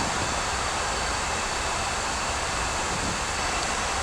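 Steady rushing flight-deck noise of an Airbus A340-300 in descent: airflow around the cockpit and air-conditioning hiss, even and unchanging.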